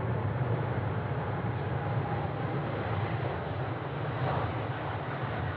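Boeing 777-300ER's twin GE90-115B turbofans at takeoff thrust as the jet accelerates down the runway and rotates: a steady deep rumble with a faint whine above it.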